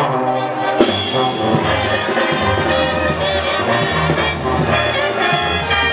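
Brass band music with trombones and trumpets playing steadily, with one sharp click about a second in.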